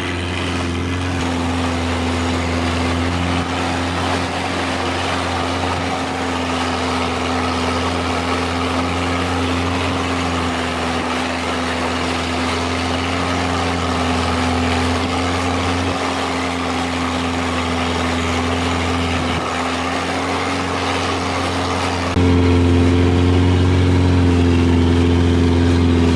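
A boat engine running steadily at speed, a constant drone with water and wind hissing over it. It gets louder about 22 seconds in.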